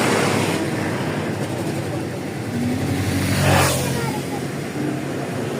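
Road traffic running steadily, with a vehicle passing close about three and a half seconds in, its noise swelling and then fading.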